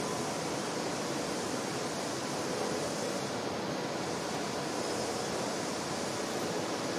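Steady rushing background noise with no distinct knocks, tones or voices.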